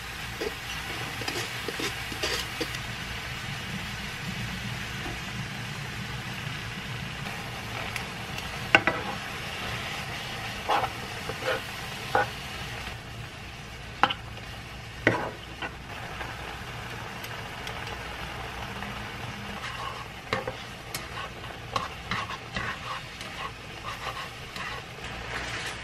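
Soft tofu, egg and bean sprouts sizzling in a nonstick frying pan as they are stirred with a spatula and chopsticks. Scattered sharp clicks and knocks come from the utensils striking the pan.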